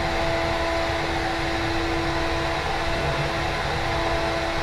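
CNC router running a job: a steady whine from its spindle over a constant rushing noise.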